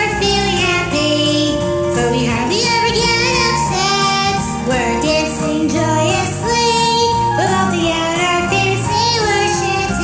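Cheerful sailor-shanty-style song: a high voice singing a wavering melody over instrumental backing.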